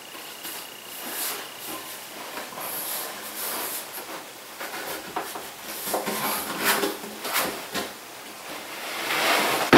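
Heavy solid-wood workbench top being lowered slowly from upright onto its base: wood creaking and rubbing, with scattered small knocks and a louder scraping rush in the last second.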